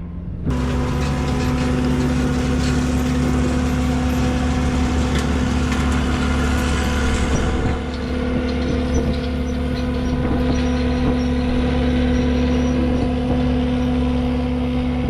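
Bobcat T750 tracked skid-steer with a hydraulic brush-cutter attachment running steadily under load, a loud, even engine-and-hydraulic hum with a steady whine over a heavy low rumble. It cuts in abruptly about half a second in and dips briefly about halfway through.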